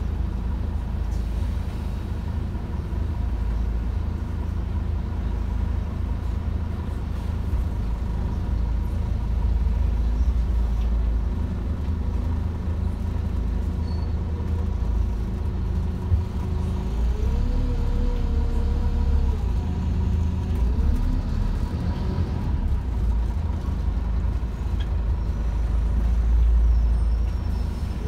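Inside a Scania OmniCity single-deck bus under way: a steady low engine and road rumble through the cabin.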